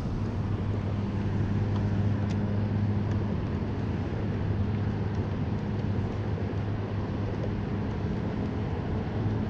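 Steady low engine hum, one unchanging drone, over a constant haze of wind and water noise.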